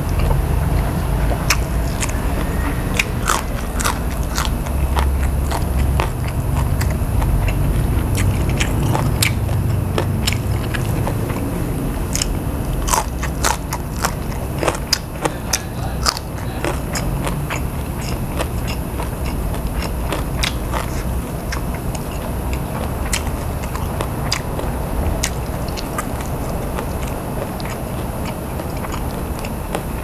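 Close-miked mouth sounds of a man eating: chewing and biting, with many short sharp crunches as he bites raw vegetables such as small green chillies. A low rumble runs underneath, strongest in the first half.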